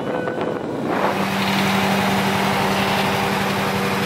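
Petrol station fuel dispenser running as fuel flows through the nozzle into a scooter's tank: a steady pump hum over a hiss, starting about a second in.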